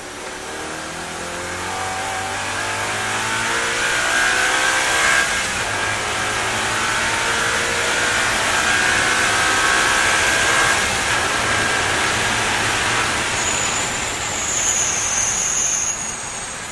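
Audi race car's engine heard from the cockpit, pulling hard with its pitch climbing, then held at high revs at speed down a straight. A thin high-pitched squeal comes in near the end, and the engine drops off sharply just before the end as the car lifts for the corner.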